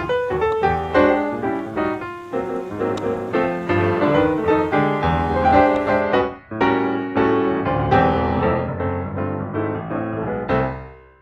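Piano music, a steady stream of notes with a brief pause about six seconds in, fading out near the end.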